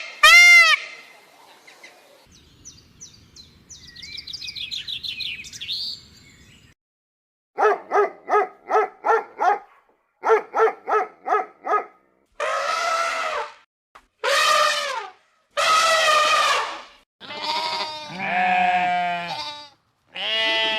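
Goats bleating. After a faint stretch of chirping, two quick runs of short, rapidly repeated bleats are followed by several long, drawn-out bleats.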